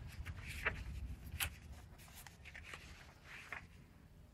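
Faint scattered scratches and rustles of a ballpoint pen and a hand moving over a sheet of paper.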